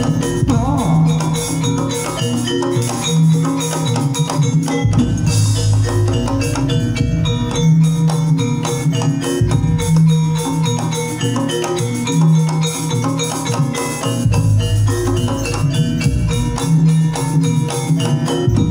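Jaranan gamelan ensemble playing kucingan dance music. Quick, busy metallophone strikes run over drums, with a deep tone coming back about every two seconds.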